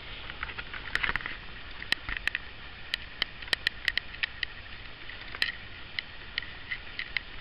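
Irregular sharp clicks and ticks, several a second, over steady background noise.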